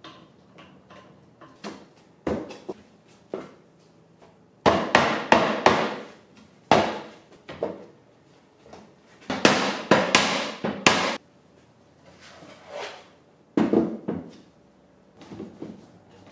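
Irregular clusters of sharp knocks as a glued walnut end-table frame is assembled, its joints tapped home with a mallet.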